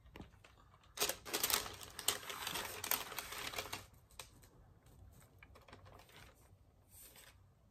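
A gingerbread house on its base being handled and turned round on a tabletop: a burst of rapid clattering and scraping for about three seconds, then a few light clicks and taps.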